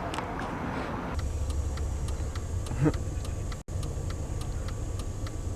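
Low steady rumble of a car, with an even light ticking about four times a second that sets in about a second in and cuts out for an instant about two-thirds of the way through.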